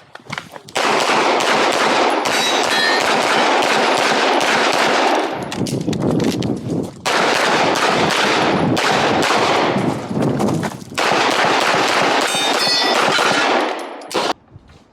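Rapid gunfire from a shooter running a practical-shooting stage. Shots come so quickly that they blur into a near-continuous din, broken by a few short pauses, and they stop shortly before the end.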